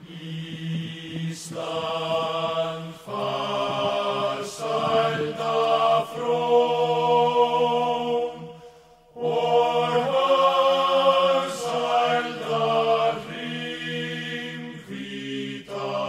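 Background music: slow chant-like singing in long held notes, with a brief pause a little past the middle.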